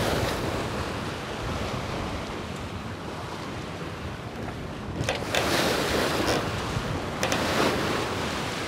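Wind and sea on a sailing yacht under way in strong wind: wind buffeting the microphone over steady wave noise, with louder surges of rushing water about five and seven seconds in.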